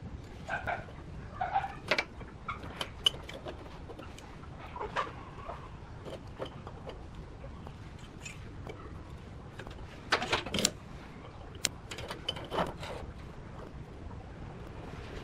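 Scattered light clicks and knocks, a few near the start and a cluster about ten to thirteen seconds in, with no drill running.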